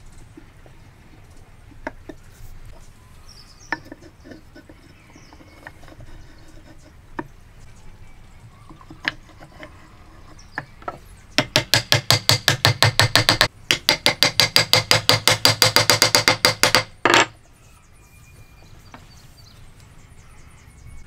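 A few light wooden knocks, then about eleven seconds in a rapid, even run of sharp strikes, about eight a second for some six seconds with one short break, driving a wooden wedge home through the tenon of a tusk-tenon joint.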